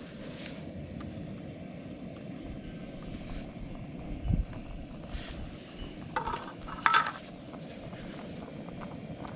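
Gas canister camping stove burner running steadily under a boiling pot, with a thump about four seconds in and a few metal clinks of the lid and spork against the pot near seven seconds.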